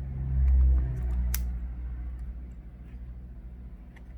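Handling noise as a tablet motherboard is set back into its frame: a dull low rumble, with one sharp click about a second in.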